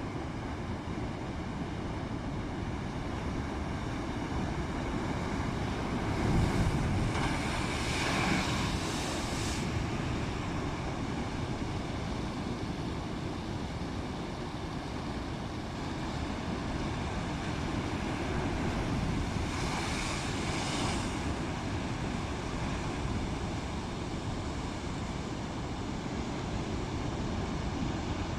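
Rough sea: steady wind and water noise with wind buffeting the microphone, and two louder rushes of breaking wave water, one about a quarter of the way in and another past the middle.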